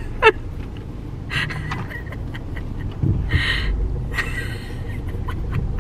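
Breathy bursts of a woman's laughter, wheezy and without words, over a low steady hum in a car cabin.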